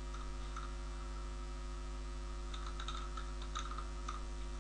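A steady electrical hum under faint computer-keyboard keystrokes, which cluster in the second half.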